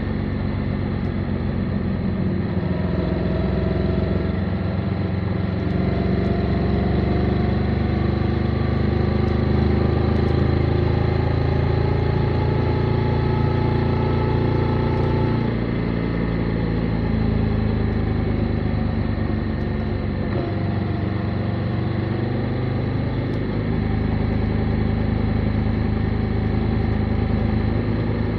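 Motorcycle engine running under way, heard from the bike. Its pitch climbs slowly for the first half, drops suddenly about halfway through, then holds fairly steady.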